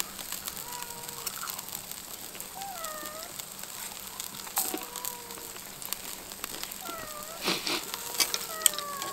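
Pork sizzling with charcoal crackling on a grill: a steady hiss with sharp pops, the loudest a little after seven and a half seconds in. Over it come several short, high mewing calls that slide down and back up in pitch.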